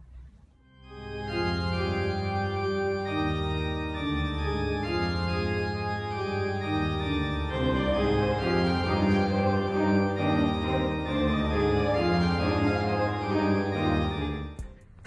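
Organ playing held chords that change every second or so. The music starts about a second in and stops just before the end.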